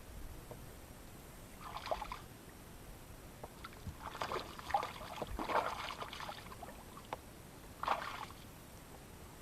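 Water splashing in three short bursts, the longest in the middle.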